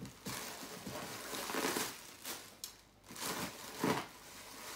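Clear plastic wrapping crinkling and rustling as it is handled and pulled out of a new handbag, coming in several bouts with short lulls between.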